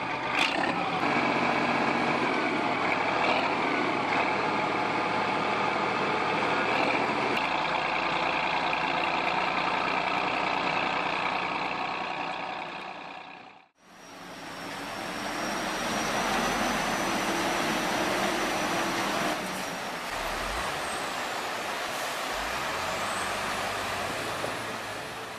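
Heavy diesel engines running under load: first a bulldozer's engine working steadily, its low note shifting about a third of the way in. After a sudden cut comes a second heavy vehicle, noisier, with a low rumble and a thin high whistle.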